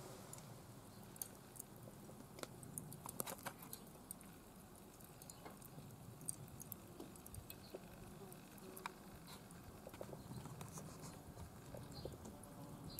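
Faint outdoor background with scattered light clicks and taps.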